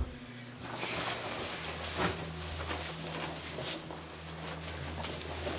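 Rustling of a fabric jacket being handled and pulled on, starting about a second in, over a steady low hum.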